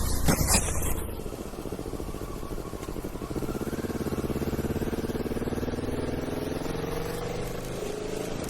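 Loud clattering noise that cuts off about a second in, then a motor's steady hum whose pitch rises slowly.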